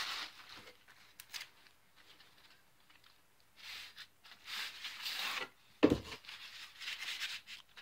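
Cardboard packaging rubbing and scraping in short bursts as a T5 fluorescent grow-light tube is slid out of its cardboard sleeve, with one sharp knock about six seconds in.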